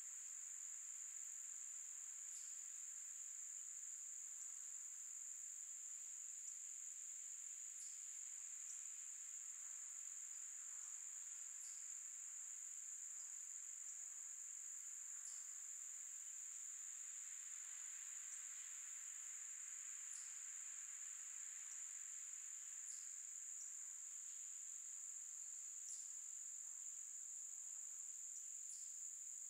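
Insects trilling in a steady, high-pitched chorus, with a short high chirp every few seconds.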